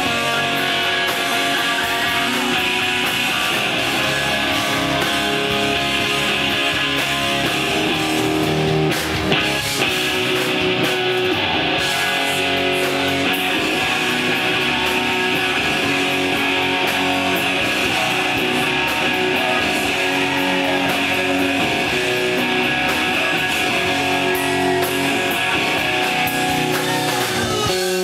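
A live hard rock band playing loud: distorted electric guitars over drums, without a break.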